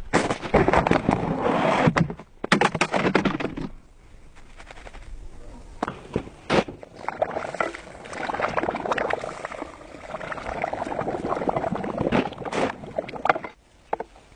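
Hand sanding: rough rubbing strokes in spells, with a pause about four seconds in and a few sharp knocks between spells.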